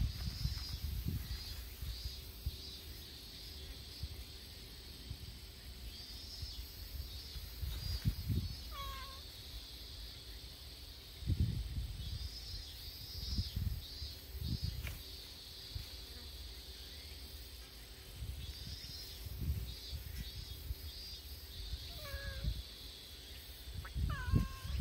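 Kittens mewing: a short, falling mew about nine seconds in and two more near the end.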